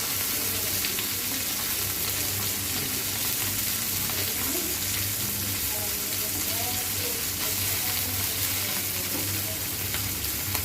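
Small sea chapila fish frying in hot oil in a frying pan: a steady, even sizzle.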